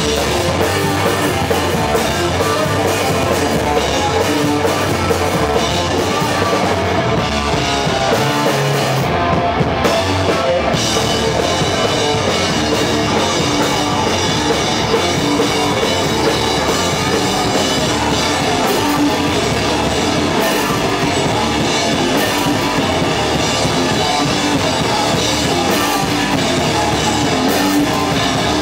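A heavy rock band playing loud live: electric guitar and bass riffing over a full drum kit, with a short break in the cymbals about nine seconds in.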